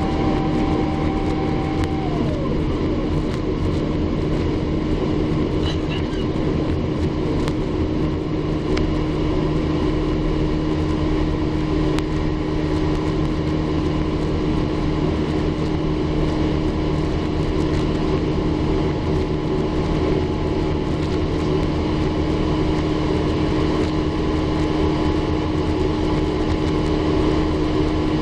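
Cabin noise of an Airbus A350-900 heard from inside the passenger cabin: the steady rush and rumble of its Rolls-Royce Trent XWB engines and airflow, with a constant low hum. A higher tone slides down in pitch about two seconds in.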